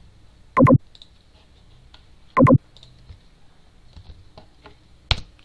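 Typing on a computer keyboard: scattered light key clicks, with two much louder short clicks about half a second and two and a half seconds in, and another sharp click near the end.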